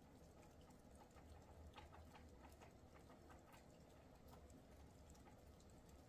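Near silence: a faint low outdoor rumble with scattered faint, irregular ticks.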